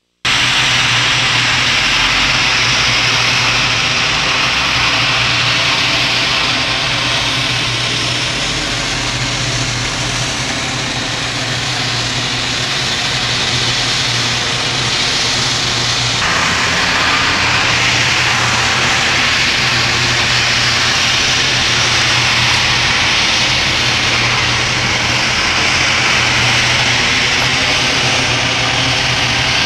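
Steady, loud engine-like roar with a constant low hum, unbroken throughout.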